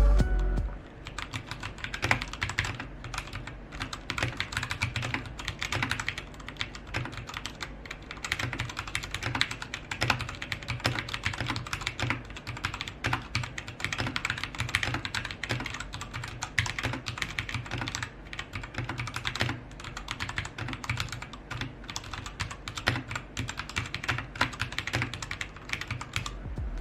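Typing on a Royal Kludge RK G68 mechanical keyboard: a fast, continuous clatter of key clicks.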